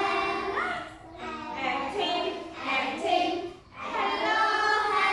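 A group of children singing together in unison with a woman's voice among them, in held notes sung in short phrases.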